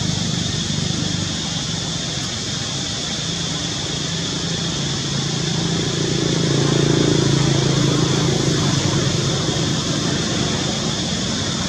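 Low engine drone of a passing motor vehicle, swelling about six to eight seconds in and then fading, over a steady high buzz.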